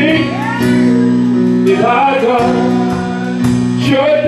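Gospel worship singing with a band backing it: voices hold and bend drawn-out notes over sustained low chords and strummed guitar.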